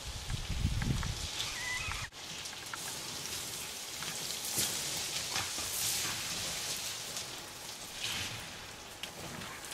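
Footsteps crunching and sliding on loose scree, an irregular gritty patter of stones underfoot. A low rumble in the first second, and a brief dropout about two seconds in.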